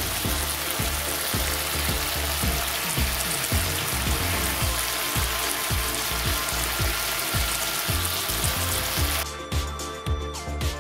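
Potato slices sizzling as they fry dry in hot oil with cumin seeds and dried red chillies, no water added, over background music with a steady beat. The sizzle cuts off suddenly about nine seconds in, leaving only the music.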